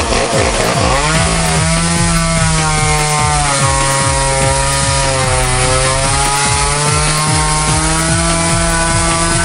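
Chainsaw running steadily at high revs, cutting through a mattress; its pitch dips slightly midway and recovers.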